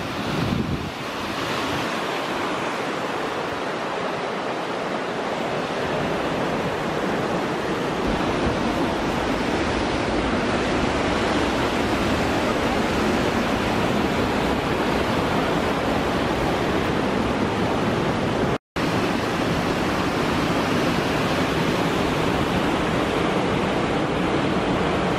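Fast mountain river rushing over rocks in white-water rapids, a steady, even rush of water. The sound cuts out for an instant about three-quarters of the way through.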